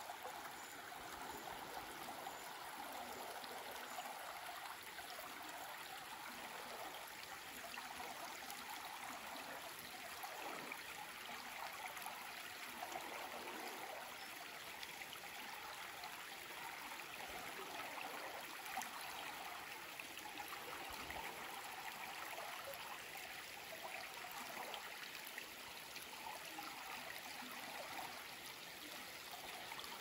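Shallow woodland river flowing steadily over a stony bed.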